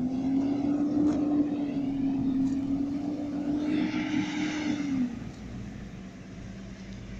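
Rear-loading garbage truck's engine rising to a raised, steady speed and holding it for about five seconds, then dropping back. A hiss joins it just before it drops.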